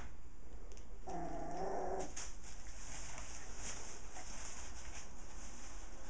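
A puppy gives one short pitched vocal sound, about a second long, about a second in. After it comes a faint crinkling and rustling of a plastic bag and newspaper as the puppies play and chew at them.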